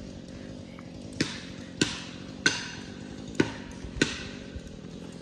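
Five sharp hammer blows driving a felling wedge into the cut of a tree, each ringing briefly, spaced unevenly about half a second to a second apart.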